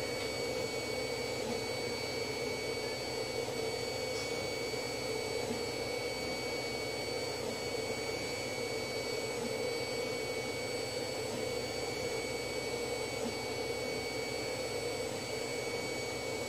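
Steady background hum and hiss with several faint high-pitched whines at fixed pitches, unchanging throughout, with no distinct knocks or handling sounds.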